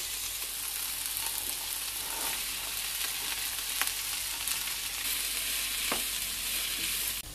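Chopped onion, capsicum and carrot frying in hot oil in a large pan: a steady sizzle, with a couple of faint ticks.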